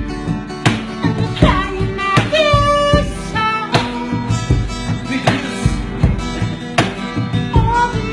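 Music: a regular drum beat with plucked guitar and a held, wavering melody line.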